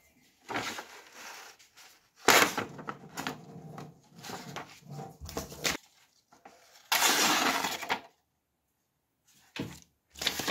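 A sheet of paper rustling as it is handled and sliced with a freshly sharpened machete blade, a test of the edge's sharpness. It comes in several crisp bursts, the loudest starting about two seconds in and about seven seconds in.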